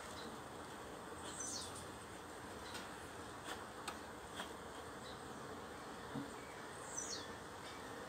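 Honeybees buzzing around an open hive in a low, steady hum, with a few light clicks around the middle. A bird gives a short downward chirp twice.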